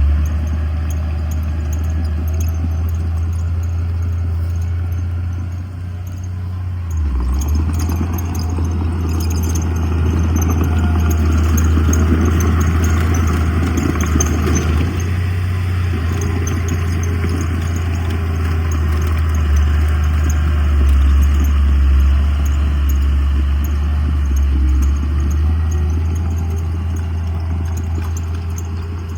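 Diesel engine of heavy earthmoving machinery running with a steady low drone. From about seven seconds in it works harder for several seconds, with added rattling and clatter, then settles again.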